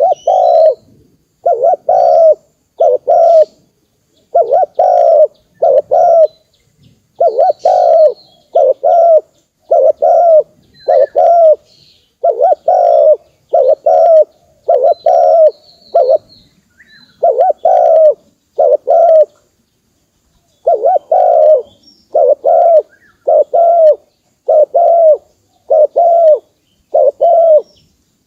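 Spotted dove cooing: repeated phrases of two or three low coos, about one phrase every second or two, with a pause of about two seconds near the end. Faint high chirps of other birds are heard between the coos.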